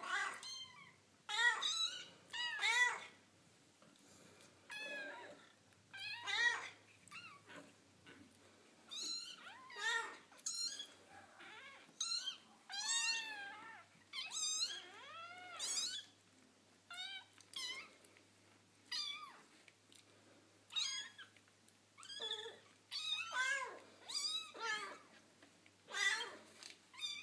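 Young kittens mewing over and over, short high-pitched calls that rise and fall in pitch, one or two a second.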